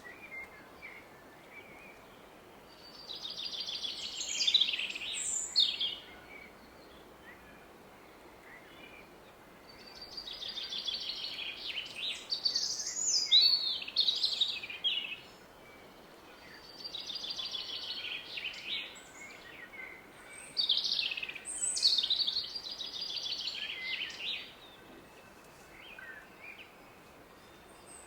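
A songbird sings three bouts of song, each opening with a fast trill of repeated notes and going on into varied, higher notes. Between the bouts only a steady hush of a distant river remains.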